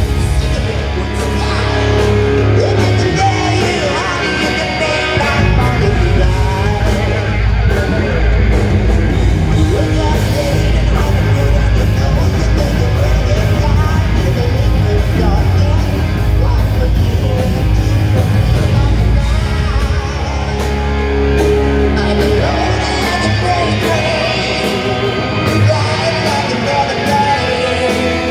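Live rock band playing loudly: a male singer over electric guitars, bass guitar and drums.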